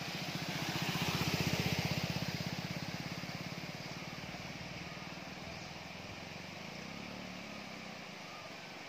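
A motorcycle riding through floodwater over the road, its engine running and water splashing from its wheels, loudest as it passes close about a second and a half in, then fading as it moves away.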